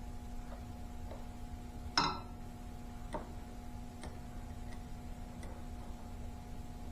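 Hydrostatic drive oil dripping from the drain into a drain pan: scattered light ticks about once a second, with one sharper click about two seconds in, over a low steady hum.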